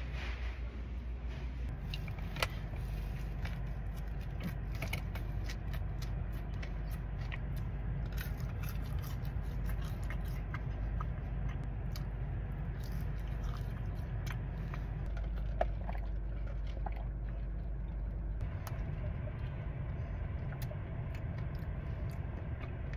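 A person biting and chewing crispy fried potato food (tater tots, then French fries) close to the microphone: many small crunches and mouth sounds, over a steady low hum.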